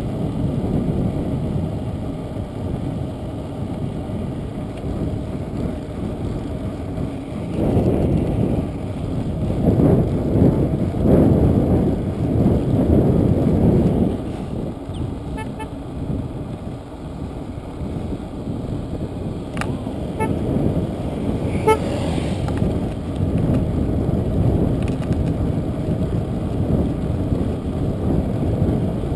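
Wind rushing and buffeting over the microphone of a camera carried on a moving bicycle, a low rumbling noise that swells about eight seconds in and eases a few seconds later. A few short, faint beeping tones come near the middle.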